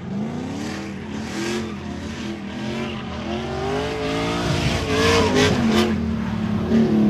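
Drift car sliding through a corner, its engine revs rising and falling under the throttle, with tyre screech. It gets louder as it comes closer, with the tyre noise strongest about five seconds in.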